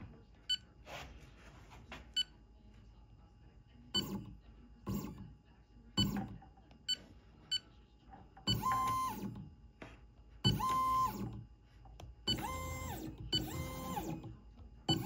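Touchscreen taps with short beeps on the AlgoLaser DIY KIT MK2's control panel. From about eight seconds in, the engraver's stepper motors jog the laser head in several short moves, each a whine that rises in pitch, holds and falls away.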